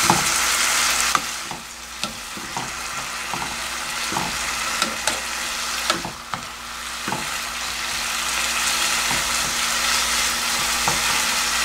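Julienned burdock root sizzling in a soy-sauce and syrup glaze in a nonstick frying pan as the liquid is boiled down, stirred and tossed with wooden and silicone spatulas that knock softly against the pan. The sizzle dips about a second and a half in and again about halfway, then builds back up.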